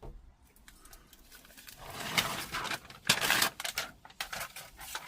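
Sheet of self-adhesive sound-deadening mat being worked onto the van's metal roof panel: scraping and crackling noises with scattered clicks, loudest in two stretches about two and three seconds in.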